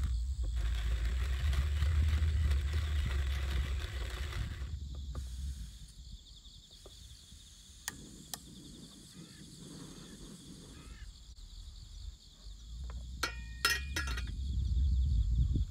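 Hand-cranked box coffee grinder grinding beans, a dense gritty crunching over a low rumble, which stops about five seconds in. After a quieter stretch come two sharp clicks, then near the end a quick cluster of clicks and clinks from handling the small gas canister stove.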